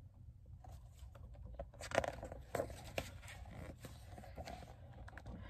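Pages of a hardcover picture book being turned and handled: faint paper rustling with a few soft taps and clicks, the loudest about two to three seconds in.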